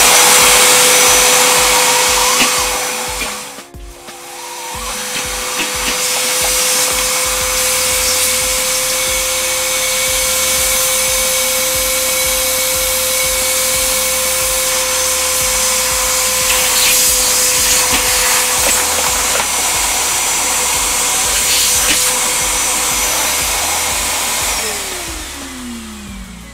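Iwata CM13-WDV10L wet-and-dry vacuum cleaner running: a loud, steady motor whine over rushing air. The sound drops out briefly about four seconds in, and near the end the whine falls away as the motor is switched off and winds down.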